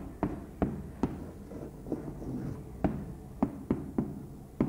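Chalk tapping on a blackboard while Arabic letters with short vowel marks are written: about seven sharp, irregularly spaced taps.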